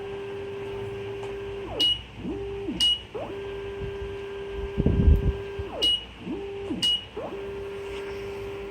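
Hybrid servo motors whining at one steady pitch as they take turns: one runs about two and a half seconds for five revolutions, then the other makes a short one-revolution move, each move gliding up in pitch as it starts and down as it stops. A short click with a brief high beep comes between moves.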